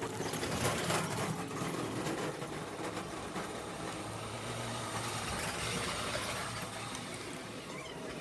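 A TVS XL100 moped's small single-cylinder four-stroke engine running steadily at idle.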